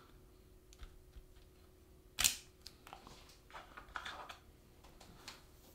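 Laptop RAM modules being handled in the memory slot: a sharp plastic-and-metal click a little over two seconds in, then several softer clicks and scrapes.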